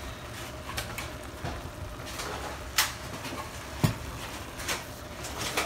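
Ground beef sizzling in a frying pan, with a few sharp, irregular clicks and knocks from utensils against the pan. The loudest knocks come near the middle.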